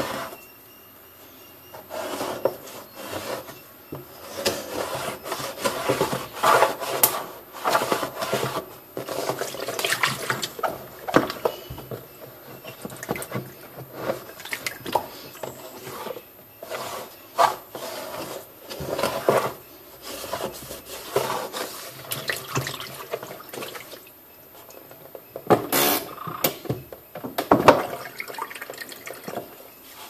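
A hand scrubbing and wiping water around the plastic drum of a twin-tub washing machine's spin dryer: water swishes and splashes among irregular rubbing strokes.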